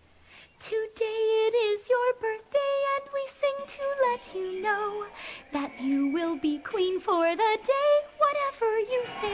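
Background song: a woman singing a slow melody, holding notes with vibrato and sliding between them, beginning about a second in.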